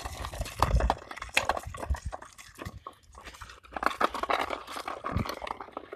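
Footsteps and dog paws on a walking path, a string of irregular clicks and crunches with jostling from the walk.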